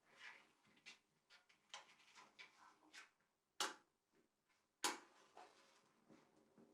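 Faint scattered clicks and scrapes, with two sharp knocks about three and a half and five seconds in.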